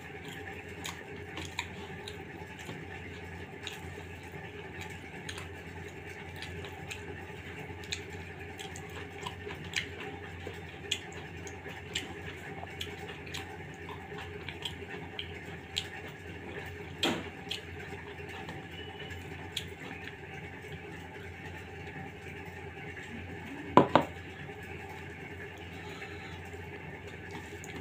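Fingers mixing and scooping soft, wet khichuri on a steel plate, making a run of small sticky, wet clicks and squelches. Two sharp knocks come close together near the end.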